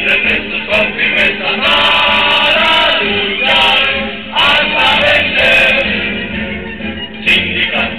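Crowd singing an anthem together, many voices in unison with long held notes.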